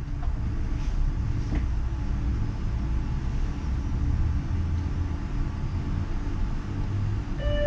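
Low, steady rumble of a Uijeongbu light rail car, a Siemens VAL 208 rubber-tyred driverless train. A steady pitched tone with overtones starts just before the end.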